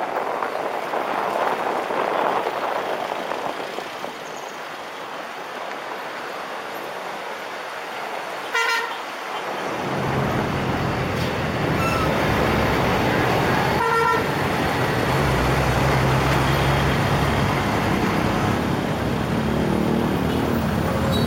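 Road traffic heard from a moving kick scooter: a steady rush of wind and road noise, then two short vehicle horn toots, one before the middle and one after. From about halfway the low rumble of jeepney and bus engines alongside fills the sound.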